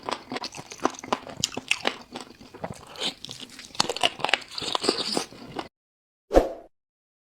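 Crunchy biting and chewing of crisp food: many sharp, irregular crunches that stop abruptly about two seconds before the end, followed by a single short thump.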